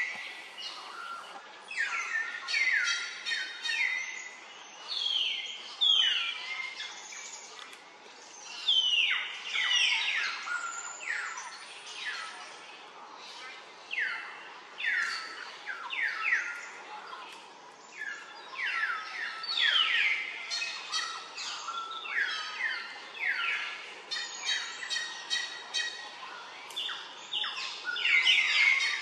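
Birds calling: a dense run of quick, high chirps that each slide sharply downward, coming in clusters every second or so.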